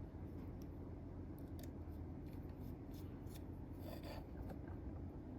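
Faint, scattered small metal clicks and light scraping from working on a folding knife's handle screws and parts with a small driver, over a steady low hum.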